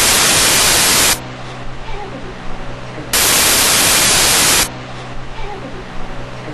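Loud bursts of hiss-like digital static from a faulty recording. One burst runs until about a second in and another lasts from about three seconds in to about four and a half. Between them are a low mains hum and a faint, indistinct voice.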